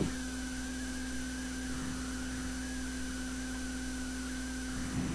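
Steady electrical hum with a fainter, slightly wavering higher whine above it.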